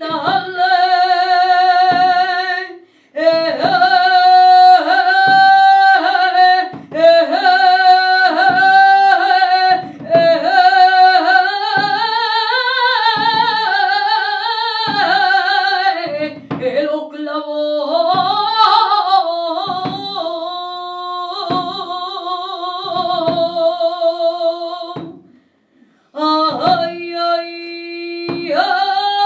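A woman singing a saeta, the unaccompanied flamenco devotional song, in long held notes with wavering ornaments. She breaks off briefly about three seconds in and again near the end. A faint low beat comes about once a second underneath.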